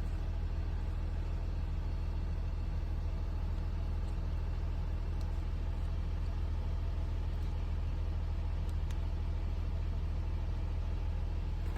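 Steady low drone of an idling engine, unchanging throughout, with a few faint clicks.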